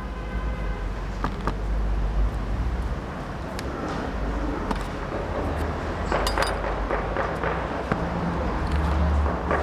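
Kitchen background noise: a steady low hum with scattered knocks and clinks, including a short ringing clink about six seconds in.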